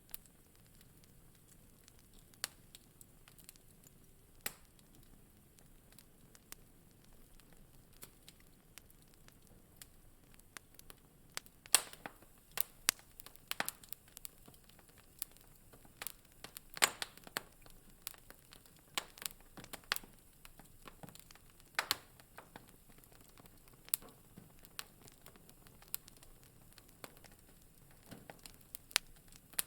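Wood fire crackling in a fireplace: scattered sharp pops and snaps over a faint low hiss, sparse at first and coming more often in the middle stretch.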